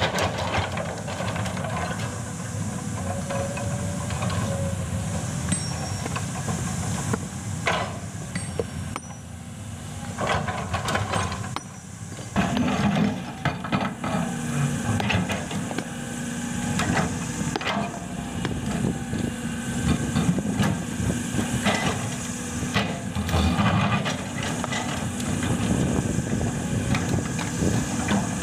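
Hydraulic excavator's diesel engine working under heavy load, with repeated knocks and scraping as the bucket pushes a huge rock. The engine eases briefly and then runs louder again about twelve seconds in.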